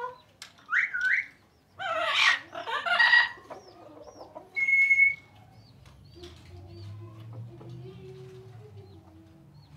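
Parrot calling: a quick rising whistle, then loud harsh squawks, and a clear held whistle about five seconds in. This is followed by a few seconds of quieter low, steady vocal sound.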